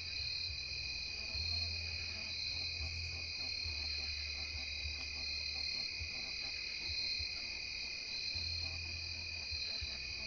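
Night-time chorus of insects such as crickets, a steady high-pitched trilling in two layers that never breaks. A low hum comes and goes underneath.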